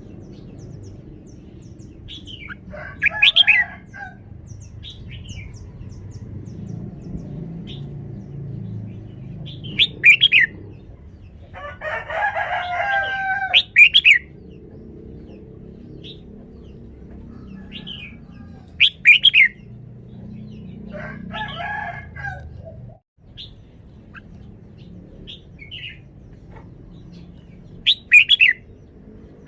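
Red-whiskered bulbul singing short, loud, whistled phrases every few seconds, with a couple of longer, lower calls between them, over a steady low background rumble.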